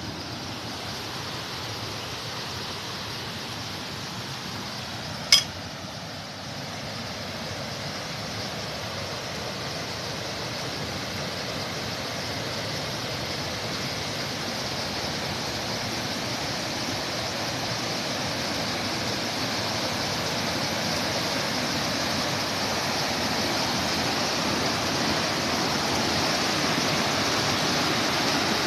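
Rushing water of a stream or waterfall, a steady hiss that grows slowly louder, with one sharp click about five seconds in.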